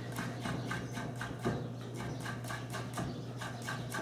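Chef's knife mincing garlic on a wooden cutting board: a quick, even run of light knocks as the blade rocks down onto the board.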